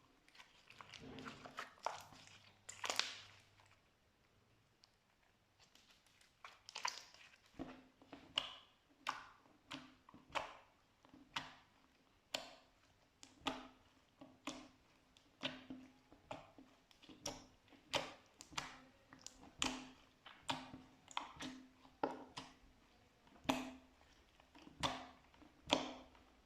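Slime being pressed and squeezed by hand, making sharp wet pops and clicks: a cluster in the first few seconds, a short pause, then a steady run of pops a little faster than one a second.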